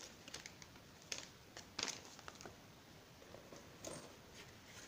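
Faint rustling of a paper instruction manual being handled and put down, with a few scattered light taps and clicks.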